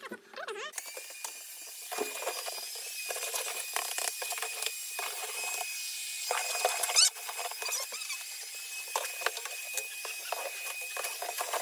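Cordless stick vacuum running, starting about a second in, with a steady high-pitched whine over a hiss, and frequent clicks and knocks as it picks up debris and bumps along the floor.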